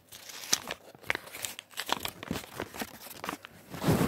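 Toy packaging crinkling and tearing as it is handled, with many small clicks and crackles and a louder rustle near the end.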